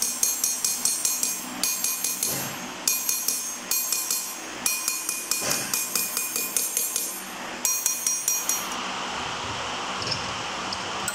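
A small hammer striking the outside of a copper pot by hand, about five quick ringing metallic blows a second in runs with short pauses. The hammering stops about nine seconds in, leaving a steady hum.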